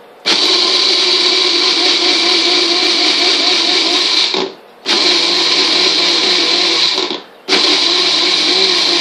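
Magic Bullet personal blender running as its cup is held pressed down, blending a marinade. The motor stops briefly about four and a half seconds in and again about seven seconds in, starting again each time.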